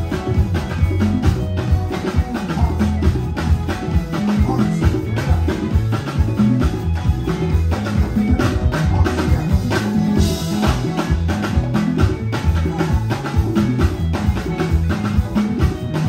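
Live band music led by a five-string Fender Jazz bass playing a busy, moving bass line over a drum kit, with a cymbal wash about ten seconds in.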